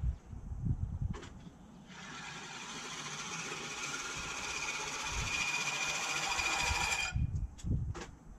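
Sun Joe MJ502M 20-inch manual reel mower, its spinning reel blades whirring as it is pushed through low-cut grass. The whirr starts about two seconds in, grows gradually louder and stops abruptly about seven seconds in, with low wind thumps around it.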